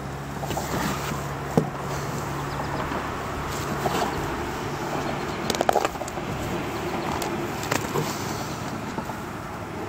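Steady outdoor background noise with a few sharp knocks and clicks close by: one early on, a quick cluster a little past halfway and two more near the end.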